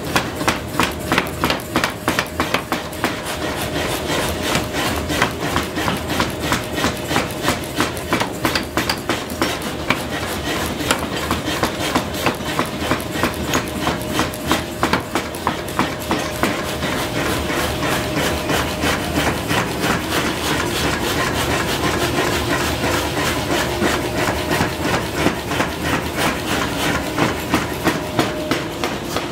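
Mechanical power hammer pounding a red-hot billet on its die in a fast, steady rhythm of several blows a second, over the machine's steady running hum. The blows are loudest in the first half and grow lighter and less even in the second.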